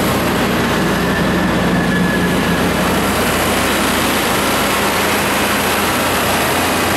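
John Deere 4045HFG92 four-cylinder diesel engine of a Multiquip DCA-70SSJU4i generator set running steadily at constant governed speed, heard with the enclosure doors open.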